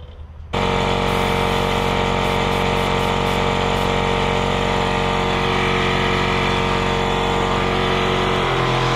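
Campbell Hausfeld air compressor kicking on about half a second in and running steadily, its motor hum shifting slightly near the end.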